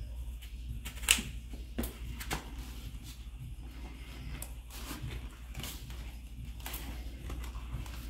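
Hands forcing a mountain bike tire bead over the rim onto a CushCore foam insert: scattered short creaks and snaps of rubber against the rim, the sharpest about a second in, over a steady low hum.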